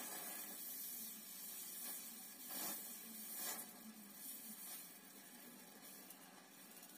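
Electric arc welding on a steel exhaust pipe joint: a steady hiss, stronger in the first few seconds and weaker in the second half.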